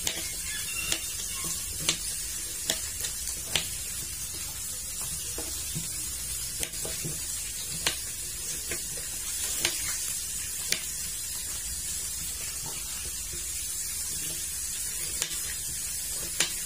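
Kitchen knife cutting raw potatoes on a plastic cutting board, irregular sharp taps, over the steady sizzle of fish frying in oil in a wok.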